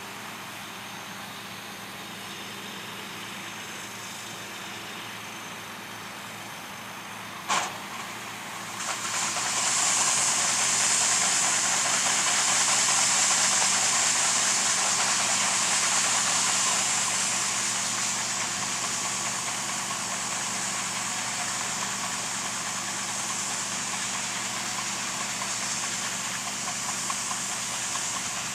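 Diesel engine of a harvest machine running steadily. A sharp click comes about seven and a half seconds in, and a loud hissing rush rises about nine seconds in and holds.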